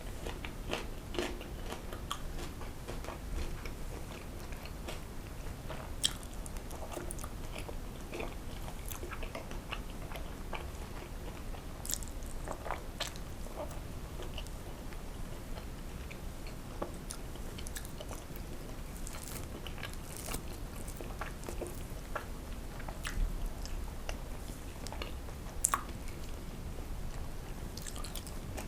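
A person chewing and biting food close to the microphone, with moist mouth sounds and scattered sharp clicks and small crunches throughout.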